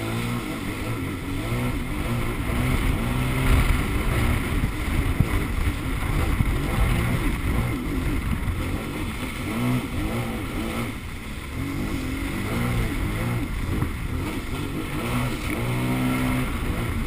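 Sea-Doo personal watercraft engine running under way, its pitch rising and falling as the throttle changes, over the rush of water.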